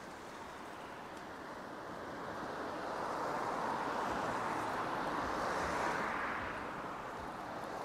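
A car passing on the street: tyre and road noise swells up over a few seconds, peaks about halfway through and fades toward the end.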